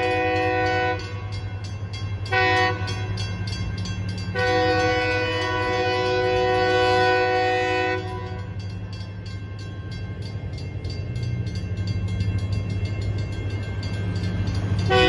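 Horn of California Northern genset switcher CFNR 501 sounding for a grade crossing: the end of one blast about a second in, a short blast, a long blast of about three and a half seconds, then a pause before another blast starts near the end. A steady low engine hum runs underneath, with the crossing's mechanical bell ringing.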